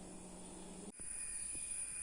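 Faint room tone and hiss with a thin high hum, briefly dropping out about a second in where the recording cuts.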